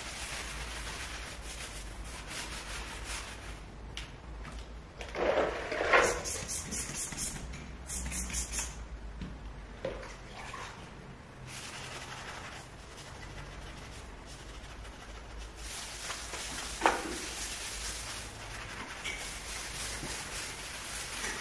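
Sponge scrubbing a wooden parquet floor by hand in quick back-and-forth strokes. Partway through, the sponge is dipped and squeezed in a bowl of water.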